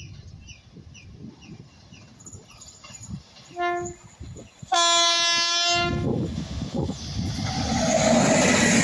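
Indian Railways WAP-7 electric locomotive sounding its horn: a short blast, then a longer one of about a second. The locomotive and its coaches then pass close by with loud, rising rail and running noise.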